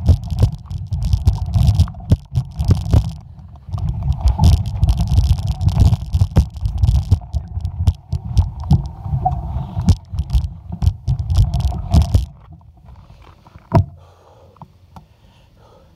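Mountain bike rolling down a gravel road: tyres crunching over the gravel with a steady low rumble and many knocks and rattles over bumps. It stops abruptly about twelve seconds in, leaving a much quieter background with a single knock a little later.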